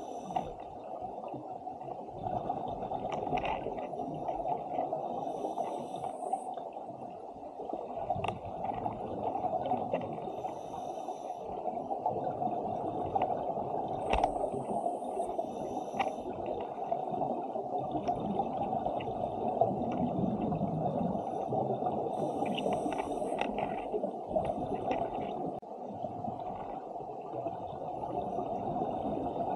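Muffled underwater rushing picked up through a camera housing, with a scuba diver's regulator breathing and exhaled bubbles gurgling every few seconds.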